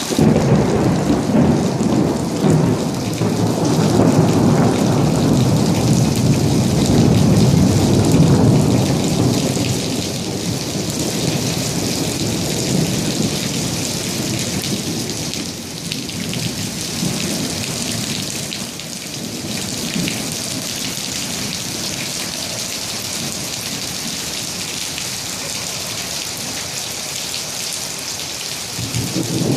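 Heavy rain pouring steadily, with a long roll of thunder over the first ten seconds or so that slowly fades out. Another rumble of thunder begins near the end.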